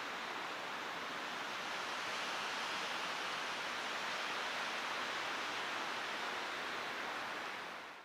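Strong wind rushing steadily through the conifer branches around an eagle nest, an even hiss with no calls standing out.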